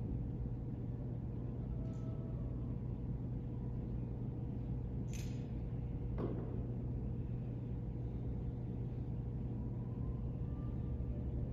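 Steady low hum of room tone, with a light clink about six seconds in as the metal chalice and glass cruets are handled at the altar.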